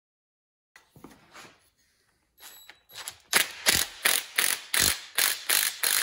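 Cordless drill with a socket running the propeller nut onto an outboard's lower-unit shaft: a few faint taps, then from about three seconds in a rhythmic series of sharp clicking strokes, about three a second.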